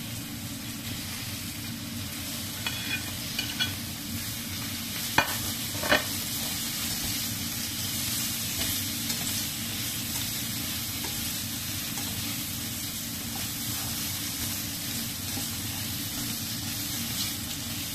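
Sliced carrot, onion, baby corn and snap peas sizzling in oil in a stainless-steel frying pan as they are stir-fried with a spatula: a steady sizzle, with two sharp knocks about five and six seconds in.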